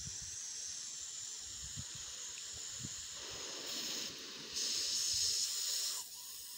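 Garden hose spraying water, a steady hiss that gets louder for a couple of seconds in the second half, then drops away near the end.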